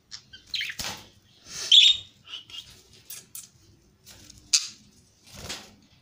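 Budgerigar giving short, high-pitched chirps, with two sharp knocks about a second in and near the end.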